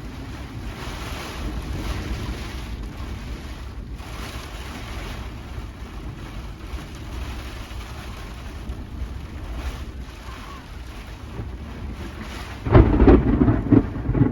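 Thunderstorm: steady rain and wind with low thunder rumbling underneath, then a sudden loud, close thunderclap near the end.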